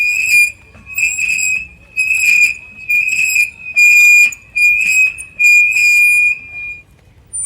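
A high, steady-pitched squeak repeated seven times at about one a second, each about half a second long, from something being moved in a regular rhythm. The last squeak trails off before the end.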